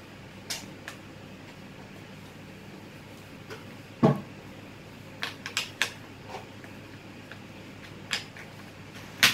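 Wooden tangram pieces clicking and knocking against each other and the wooden tray as the last two pieces are fitted into place by feel. Scattered light taps, a louder knock about four seconds in, and a quick cluster of clicks a second later.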